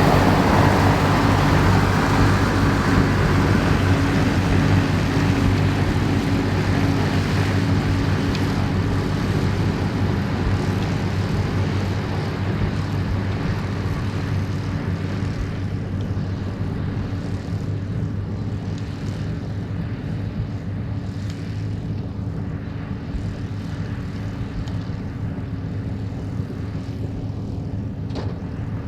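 New Holland TM155 tractor running steadily while working a Claas Variant 385 round baler, a constant engine drone that slowly fades as the outfit moves away.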